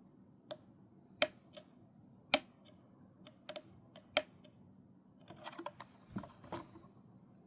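Irregular sharp clicks and taps, about a dozen scattered over the first few seconds, then a quick cluster of rustling clicks and soft knocks near the end.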